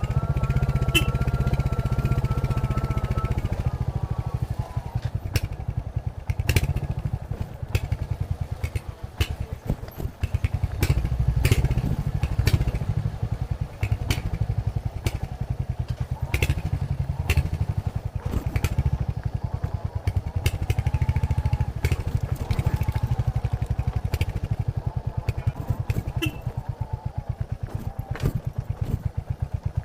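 Royal Enfield Hunter 350's single-cylinder engine thumping through its stock exhaust while riding. It eases off about eight to ten seconds in and pulls again from about eleven seconds. Scattered clicks and knocks run through, and a high held tone sounds over the first few seconds.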